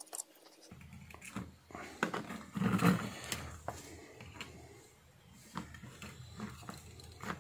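Scattered small clicks and knocks from a circuit board and soldering iron being handled, with one louder, rough, lower sound lasting about a second near the middle.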